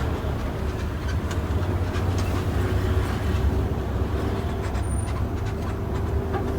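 Intercity bus's engine running steadily with road noise while the bus drives, heard from inside the cabin.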